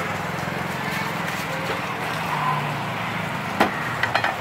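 Steady street background with a low engine hum from traffic. A sharp clack comes about three and a half seconds in, then a quick run of small clicks near the end.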